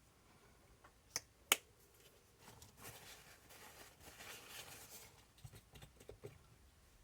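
Two sharp clicks a little over a second in, then a few seconds of soft rustling and a few light taps: small parts being handled at a workbench.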